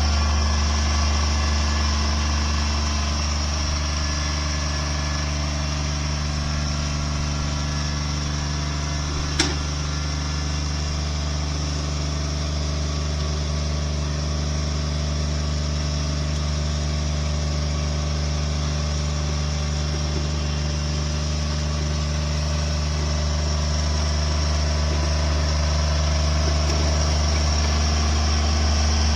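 An engine running steadily at an even speed, with one sharp click about nine seconds in.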